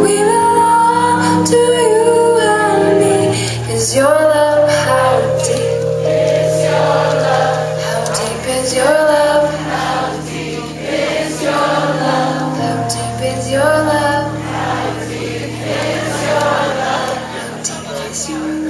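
Live pop band playing: sustained keyboard chords and bass under female vocals singing long, gliding notes without clear words.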